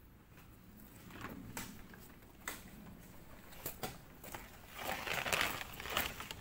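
Woven plastic fertilizer sack rustling and crinkling as it is handled and opened, with scattered light knocks. The rustling grows louder about five seconds in.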